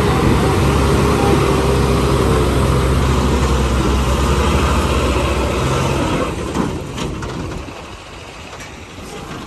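Heavy diesel engine running steadily at idle with a deep low hum; a little over six seconds in it drops away to a much quieter running sound, with a couple of sharp knocks around the change.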